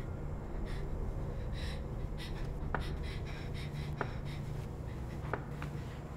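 A woman's quick, hushed breaths, coming about twice a second, over a low steady drone, with a few faint sharp clicks.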